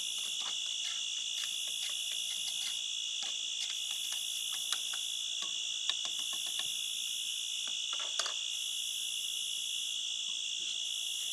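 Night insect chorus of crickets chirring steadily, with a higher band that breaks off and returns every second or two. Faint clicks of a spoon stirring in a steel cup.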